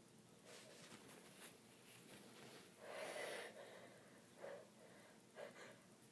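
Faint breathing and sniffling from a woman with a bad cold, with a longer, breathy intake of breath about three seconds in and a few short, faint breaths after it.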